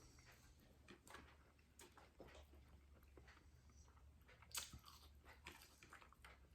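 Faint chewing and mouth clicks of a man eating a McDonald's Chicken Big Mac, soft and irregular, with a sharper smack about four and a half seconds in.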